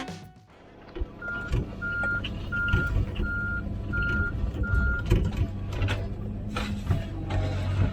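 A machine's reversing alarm beeping six times, about one and a half beeps a second, over a diesel engine running steadily. A few short clanks follow near the end.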